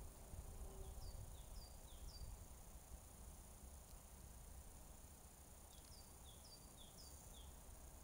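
A small bird calling in two short runs of thin, falling high notes, about two a second, the first run about a second in and the second near the end.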